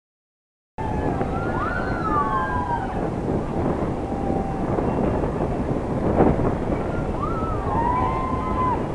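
Wind buffeting the microphone, a steady rumble. Over it, high cries rise and fall twice, a few seconds apart, and a single clunk sounds about six seconds in.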